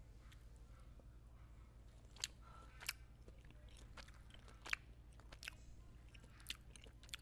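Near silence: a low steady hum with several faint, sharp clicks scattered irregularly through it.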